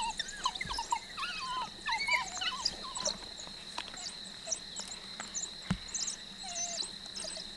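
African wild dogs twittering in quick, high, bird-like chirps while squabbling over a fresh kill, dense in the first couple of seconds and then thinning to scattered calls. A steady high insect drone runs underneath.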